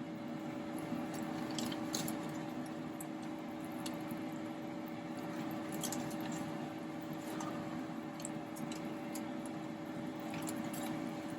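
Floured chicken pieces sizzling in hot oil in a frying pan: a steady sizzle with scattered small pops and crackles of spitting oil.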